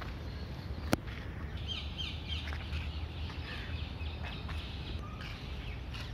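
Birds chirping and calling, many short high notes, some of them quick falling ones, over a steady low rumble. A single sharp click comes about a second in.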